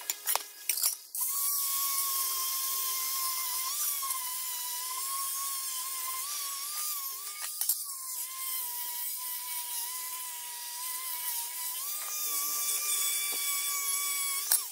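Electric angle grinder with a sanding disc running against a rusty steel sheet: a steady high whine over a gritty hiss, its pitch dipping and wavering slightly as the disc is pressed into the metal to strip the rust. A few sharp knocks in the first second before the grinder starts.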